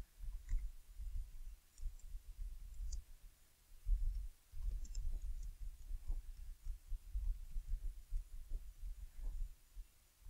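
Typing on a computer keyboard: irregular soft keystroke clicks with dull low thumps, pausing briefly about three and a half seconds in.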